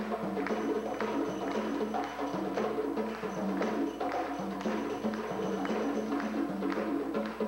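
Live band playing belly dance music: a drum kit and percussion keep a busy, even rhythm under a stepping melody.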